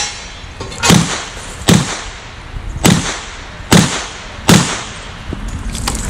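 Five shots from a Smith & Wesson Model 325 Thunder Ranch .45 ACP revolver, fired one after another a little under to a little over a second apart, each a sharp crack with a short tail of echo.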